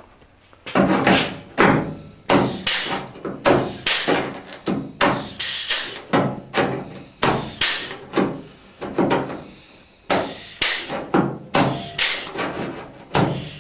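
Pneumatic air flange tool crimping the steel edge of a cut-out in a 1957 Chevy Bel Air body panel: quick repeated clunking strokes, about two a second, starting about a second in. Each stroke steps the edge into a flange so a patch panel can sit flush for welding.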